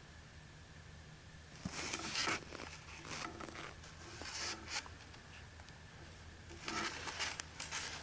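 Clothing and gear rustling and scraping close to the microphone in a few short bursts, as the hunter shifts about, over a faint steady low hum.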